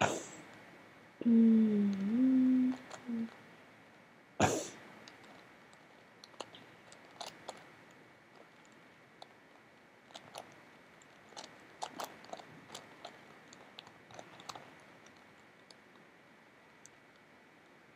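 Plastic Megaminx puzzle being turned by hand: many small light clicks as its faces are twisted, scattered through the middle of the stretch. Near the start there is a short hummed "hmm" from the solver, the loudest sound, and a single sharp knock about four and a half seconds in.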